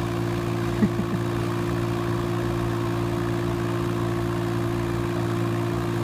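Kubota K008-3 mini excavator's three-cylinder diesel engine running steadily, with two short sharp sounds about a second in.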